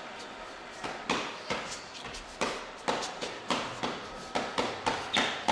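A run of sharp knocks and smacks, about two or three a second, starting about a second in: live stage sound effects for a mimed wrestling fight.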